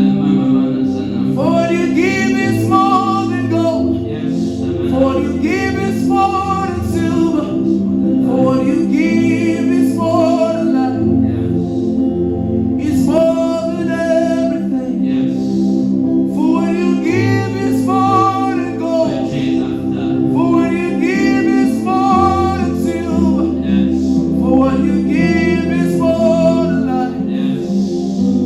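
Gospel worship music: voices singing phrases every few seconds over sustained held chords and a slowly changing bass line.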